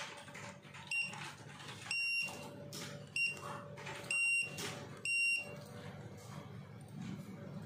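Wearable glove barcode scanner beeping five times, a high clean tone: two short beeps and three longer ones, each confirming a read as it scans setup barcodes from its manual to switch into SPP mode.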